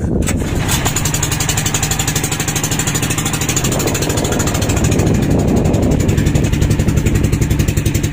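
Small fishing boat's engine running with a fast, even chugging, getting a little louder about halfway through.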